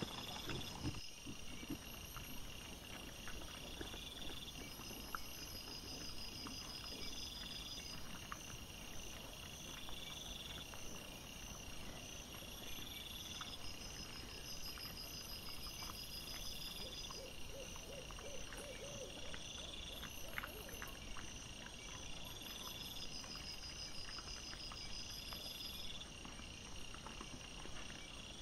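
Insects chirping in a high pattern that repeats about every second and a half, over many soft clicks and rustles from wild boar and piglets foraging on the forest floor. A short run of quick, lower pulses comes about two-thirds of the way through.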